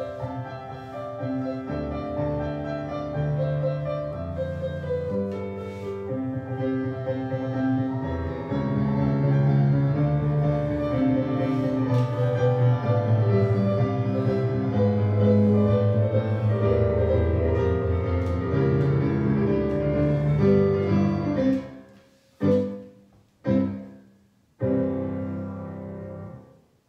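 Solo piano accompaniment for a ballet barre tendu exercise. Near the end the phrase breaks off into two short separate chords and a final chord that rings and dies away.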